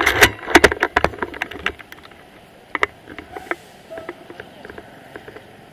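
Rustling and clicking handling noise from a handheld camera carried while walking. A dense run of clicks and rubbing with some low rumble comes in the first two seconds, then only a few faint scattered clicks.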